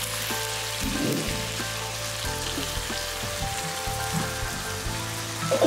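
Chicken and capsicum sizzling in a hot non-stick pan as water is poured in, a steady hiss of water spitting and boiling off the pan.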